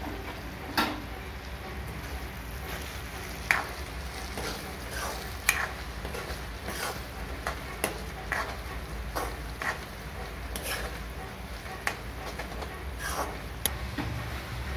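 Spiced curry gravy for fish curry sizzling and bubbling in an aluminium kadai as it is stirred, with sharp pops and crackles every second or so.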